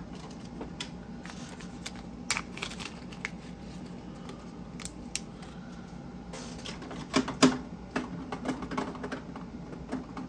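Handling noise: scattered light clicks and taps of small objects being picked up and set down, with a couple of louder knocks about seven seconds in.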